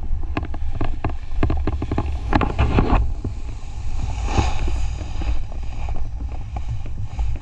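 Wind buffeting the microphone with a steady low rumble. A rapid run of clicks and scrapes fills the first three seconds.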